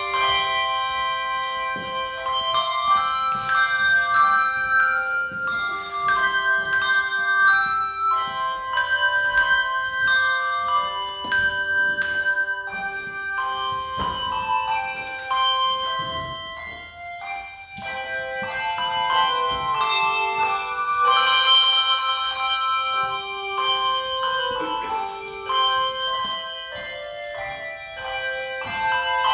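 Handbell choir ringing an anthem: melody notes and chords struck in turn, each bell ringing on into the next, with a softer passage around the middle.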